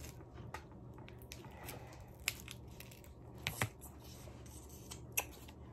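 Plastic freeze-pop sleeve being handled and worked at to open it: a few scattered sharp clicks and crinkles, over a faint low steady hum.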